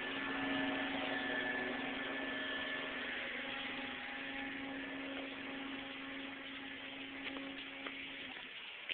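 A steady machine hum over a noisy hiss, the hum cutting off shortly before the end.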